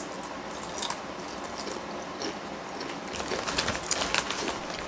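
Potato chips crunching while being chewed: a run of quick crisp crackles and clicks, heaviest in the second half.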